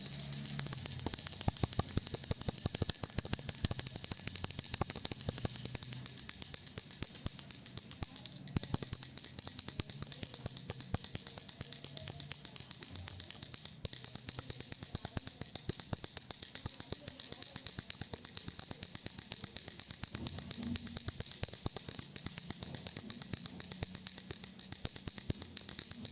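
Puja bell (ghanti) rung continuously, its clapper striking in a fast, unbroken run over a steady high ringing tone.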